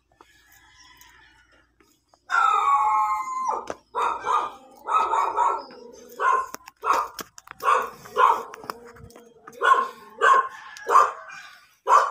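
A dog barking: one long drawn-out howling bark about two seconds in, then a run of short barks, roughly one or two a second.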